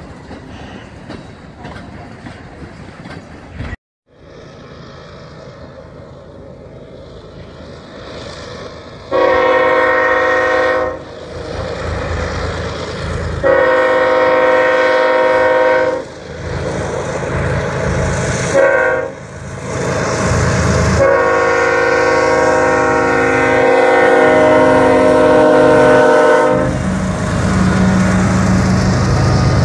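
A freight train of covered hopper cars rumbling past. After a cut, a Kansas City Southern locomotive approaches a grade crossing and sounds its air horn in the crossing pattern of long, long, short, long. The locomotive's low engine rumble follows as it passes.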